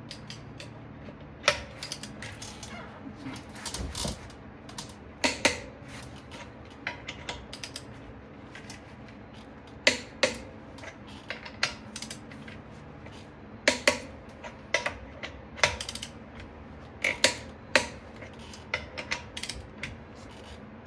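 Torque wrench set to 130 foot-pounds ratcheting and clicking as wheel lug nuts are tightened: a series of sharp clicks, some in quick clusters, with pauses between nuts.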